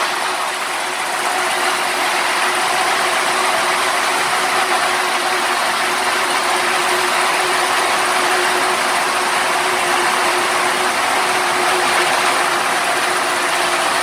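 Full-automatic mini round silage baler running steadily under load as it takes in chopped stalks from its feed conveyor: a constant hum over an even mechanical hiss.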